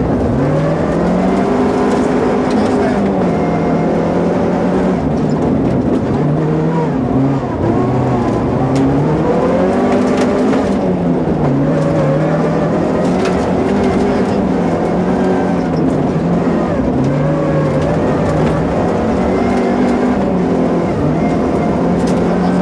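Opel Kadett GSi 16V rally car's four-cylinder 16-valve engine at full stage pace, heard from inside the cabin. The revs climb and drop again and again as the driver accelerates, shifts and brakes for corners.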